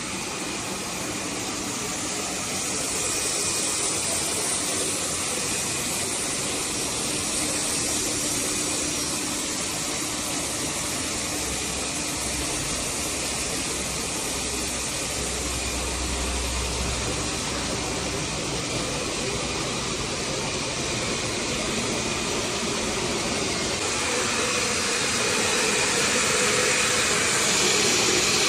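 Hot-welding machine for filter bags running with a steady hissing mechanical noise, getting louder over the last few seconds.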